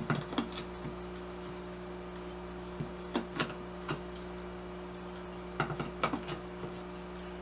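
Scattered small clicks and knocks of a tack hammer's claw gripping and levering a small nail out of wood, in three short clusters, over a steady low hum.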